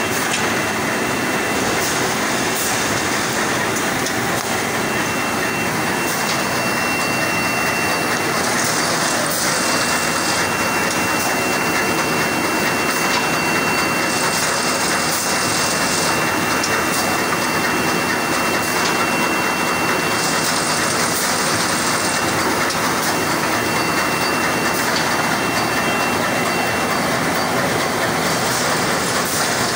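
Automatic 5-ply corrugated board pasting machine running: a steady, loud mechanical clatter from its rollers and sheet feed, with a thin high whine throughout. A hiss comes back about every six seconds, lasting a second or two each time.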